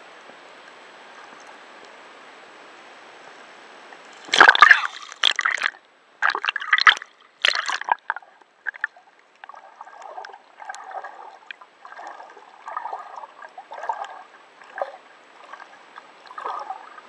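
Water sloshing and splashing: a steady hiss at first, then several loud splashes from about four seconds in, followed by softer gurgling and sloshing.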